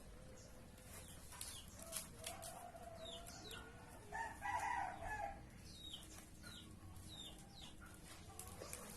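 A rooster crowing once, about four seconds in, with small birds chirping in short high downward notes throughout.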